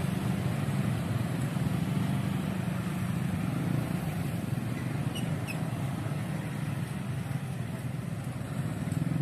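Motorcycle engines running close by at a railway level crossing, a steady low traffic drone.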